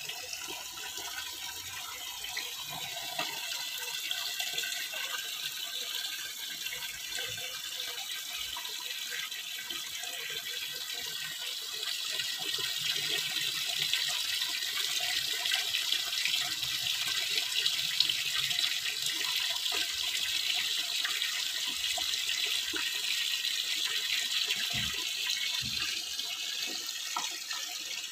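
Running water: a tap splashing steadily into a bucket of muddy water, then filtered water pouring from a pipe outlet into a basin.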